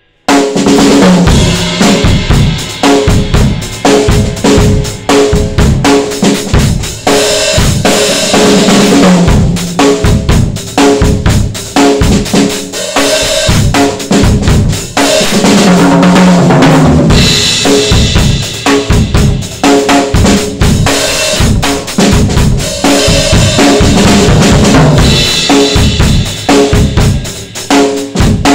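Drum solo on a Sound Percussion Labs acoustic kit (22-inch kick, 10- and 12-inch rack toms, 14-inch snare, 16-inch floor tom) with Soultone hi-hats, crash and ride. It starts abruptly at full volume with busy kick, snare and cymbal playing, and several times the fills run down the toms.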